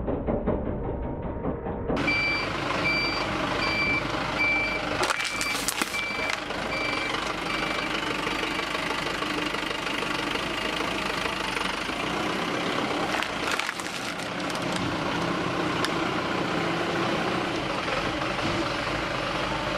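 Truck reversing alarm beeping in a steady on-off pattern over the running engine, starting about two seconds in and fading out after several seconds. A few sharp cracks come through, around the middle and again later.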